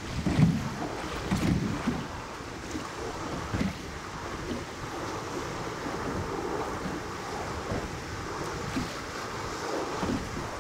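Wind buffeting the microphone over the wash of sea waves against a small boat's hull. The gusts are strongest in the first two seconds, then settle into a steady rush.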